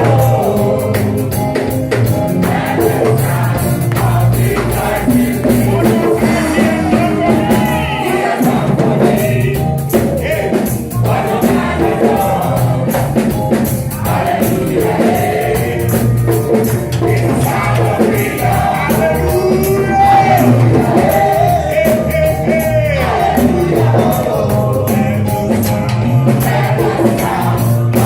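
Live gospel worship music: singers with a band, tambourine and drums keeping a steady beat.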